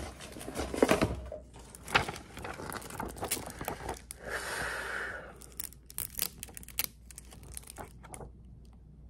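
Paper crinkling and rustling as sheets of paper are unfolded and handled, with scattered sharp crackles and one longer rasp about four and a half seconds in.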